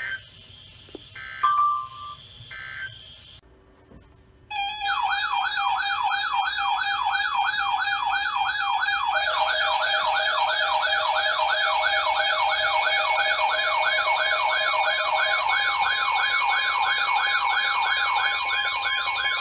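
Three short warbling data bursts about a second apart: the Emergency Alert System end-of-message tones closing the NOAA Weather Radio warning. After a brief pause, an electronic warning siren starts up, warbling rapidly at about three cycles a second. A second, higher warbling tone joins about nine seconds in.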